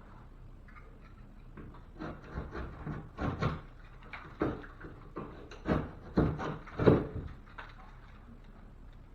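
A series of irregular wooden knocks and clunks, a dozen or so over about six seconds with the loudest near the end, as lumber and drywall pieces are handled and set in place.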